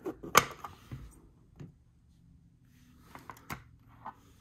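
Fingernails clicking and scraping on a small clear plastic card case as it is picked at to get it open: a handful of scattered clicks, the sharpest about half a second in.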